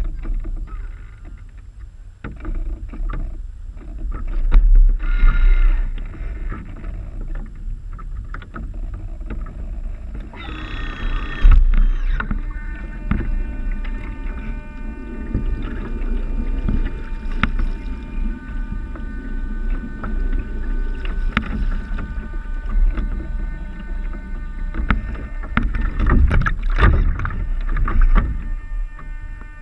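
Water rushing and splashing along the hulls of a Mini40 model trimaran under sail, with wind rumbling on the onboard camera. It gets louder around five and eleven seconds in, and a faint steady high whine joins from about halfway.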